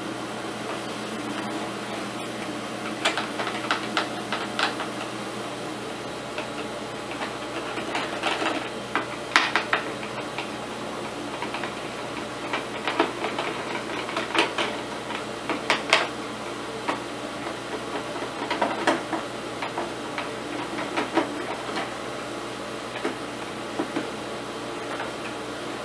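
Screwdriver turning out screws from a plastic heater casing: scattered light clicks and taps of the tool and the plastic housing, coming in short clusters, over a steady background hiss.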